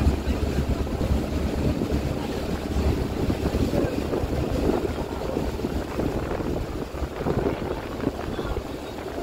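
Tour boat's inboard engine running steadily under way, with wind buffeting the microphone and water washing past the hull.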